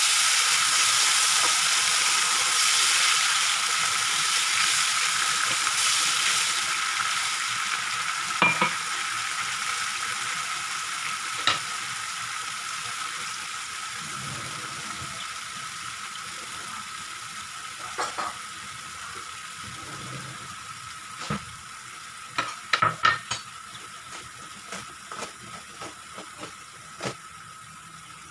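Onion, garlic and sauce sizzling in a frying pan after water is poured in. The sizzle is loud at first and dies down steadily as the liquid settles to a simmer. A few light clicks and knocks come through, mostly in the second half.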